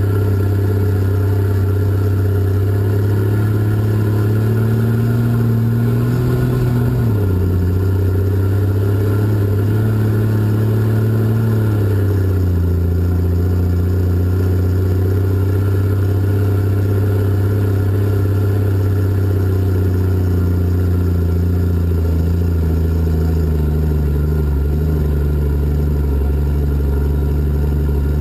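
Cat 627 scraper's diesel engine running under load, heard from inside the cab. The engine note drops sharply about seven seconds in and again around twelve seconds, then climbs slowly toward the end.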